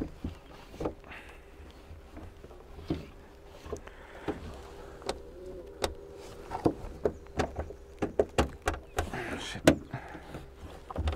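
Scattered light clicks and knocks of hands feeling along the front edge of a 2020 Land Rover Defender's bonnet and grille for the bonnet release, over a faint steady hum.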